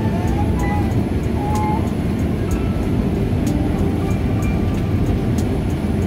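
Airliner cabin noise in flight: a steady, dense rush of jet engines and airflow. A few faint melodic notes sound over it.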